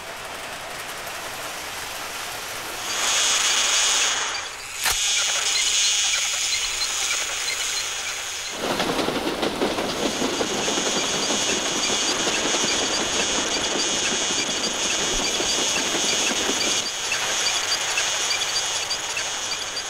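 Toy steam locomotive running along its model track, sounding like a full-size steam train: a steady rushing hiss with a high squealing tone over it. The tone comes in briefly about three seconds in and again from about ten seconds on, and there is one sharp click near five seconds.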